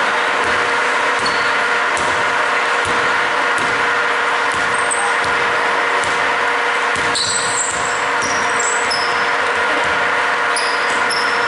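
Basketball being dribbled on a hardwood gym floor, with a few short high squeaks of sneakers on the court in the second half, over a steady hum that fills the hall.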